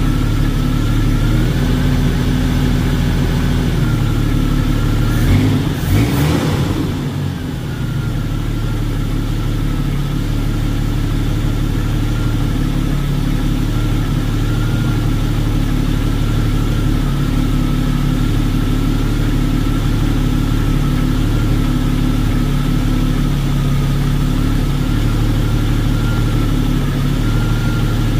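1984 AMC Eagle's inline-six engine idling steadily on a freshly rebuilt Motorcraft 2150 two-barrel carburetor. A thin steady whine runs over the engine sound. About five to seven seconds in there is a brief surge, and the idle then settles slightly quieter. The idle is smooth, which the owner takes as the sign of a successful carb rebuild.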